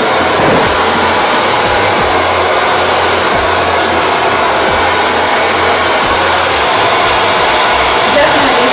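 BaByliss Pro 2000-watt blow dryer running steadily, a loud even rush of air.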